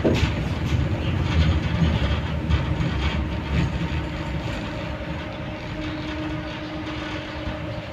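Tram car running along the rails, heard from inside the passenger saloon: a steady rumble of wheels on track with rattling. The rumble gets quieter from about halfway, and a steady hum comes in over the last few seconds.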